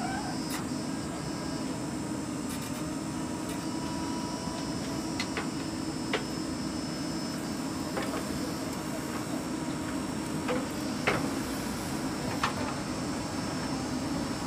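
Diesel engine of a JCB 3DX backhoe loader running steadily under load while the backhoe arm digs and swings soil. Sharp clanks and knocks from the arm and bucket come every few seconds, the loudest about eleven seconds in.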